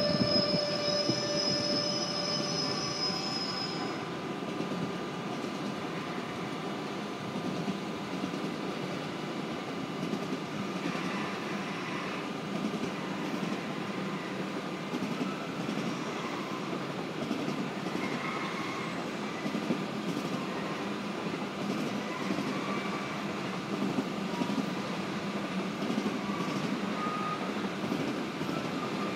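Rolling-highway freight train, low wagons loaded with lorries, rolling past with a steady rumble of wheels on rails and short wheel squeals in the second half. A high steady whine is heard over the first four seconds or so.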